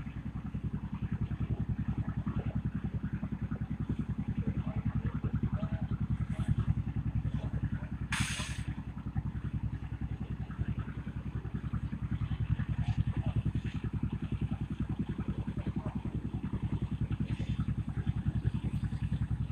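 An engine running steadily close by, with a fast, even low beat. There is a short hiss about eight seconds in.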